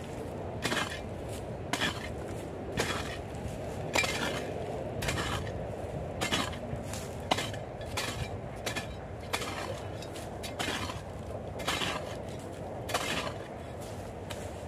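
A metal shovel blade digging into hard, dry soil, chopping and scraping with a gritty clink about once a second.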